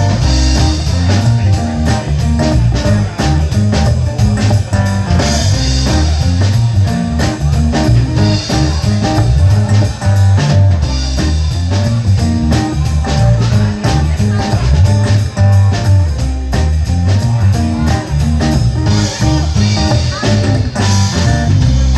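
Instrumental intro of a rock-blues band song: electric guitar over bass and a drum kit keeping a steady beat.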